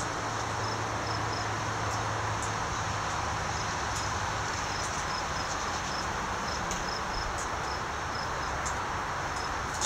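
Steady outdoor background hiss with faint, evenly repeating high chirps of insects; no shots are fired.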